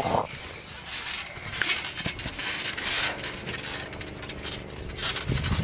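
Wrestlers moving about on a trampoline mat: scuffling and rustling with scattered small clicks and soft knocks.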